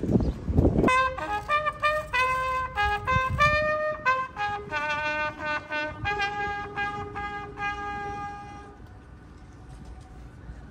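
A brass horn playing a short solemn call of separate held notes, ending about nine seconds in.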